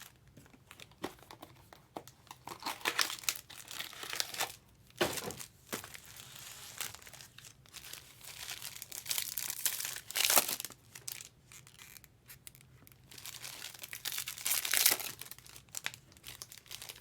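Foil trading-card pack wrappers crinkling and tearing as packs are ripped open and the cards handled, in irregular crackling bursts, loudest about ten and fifteen seconds in.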